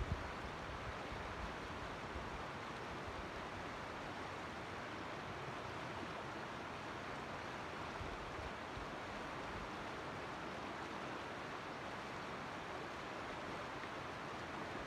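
Creek water rushing, a steady even noise with no change, and a short low bump at the very start.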